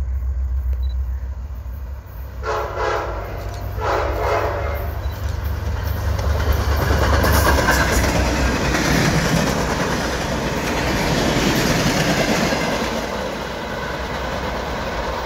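Diesel passenger train led by an F59PHI locomotive sounding two horn blasts as it approaches, then passing close by with its engine running and the steady clatter of wheels on rail as the coaches roll past.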